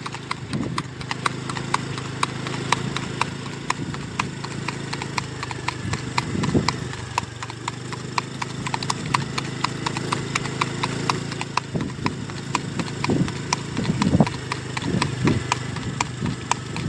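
A horse's hooves clip-clopping on an asphalt road at a brisk gait, a quick even beat of sharp strikes over a steady low hum.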